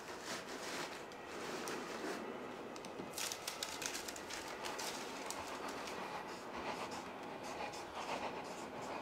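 Clothes and a cardboard box being handled, rustling with light knocks, over a steady rumbling noise.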